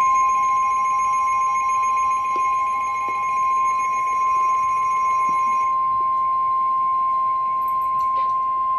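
NOAA Weather Radio warning alarm tone, the single steady 1050 Hz tone that announces a warning such as a severe thunderstorm warning, held for about nine seconds and cut off abruptly at the end. Fainter higher tones sound beneath it and stop about two-thirds of the way through.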